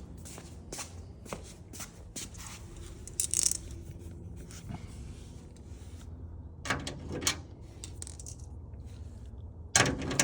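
Rummaging through small metal tools or hardware: scattered clicks, scrapes and clinks, with a short hissing rustle about three seconds in and louder clatters about seven seconds in and near the end.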